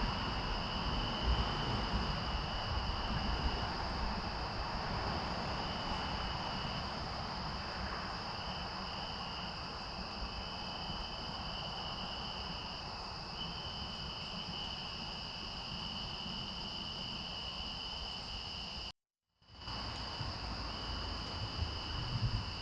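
Steady chorus of night insects, crickets or the like, trilling continuously in two high even tones, over a low rumble of wind or microphone noise. The sound cuts out completely for about half a second near the end, then resumes unchanged.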